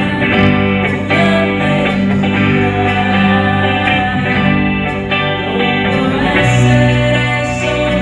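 A live band playing, led by guitar over a sustained bass line that moves to a new note about six and a half seconds in.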